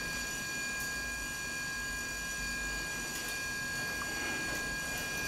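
Steady background hiss with faint, constant high-pitched electrical whines and no distinct event, apart from a few faint ticks.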